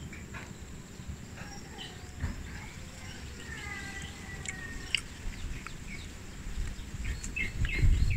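Outdoor rural ambience: scattered bird chirps and a few longer whistled calls over a steady low rumble, with a couple of sharp clicks.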